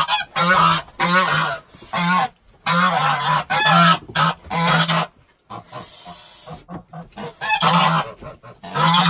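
Domestic geese honking loudly and repeatedly as they are caught by hand. The honking breaks off for about two seconds past the middle, then starts again.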